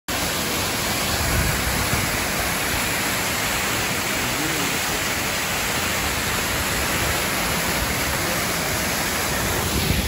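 Waterfall: two cascades falling over rock into a plunge pool, a steady, even rushing of water.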